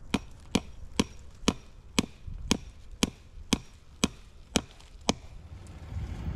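Hatchet hammering a staple into a wooden fence post to fasten woven wire fence: sharp strikes about two a second, stopping about five seconds in.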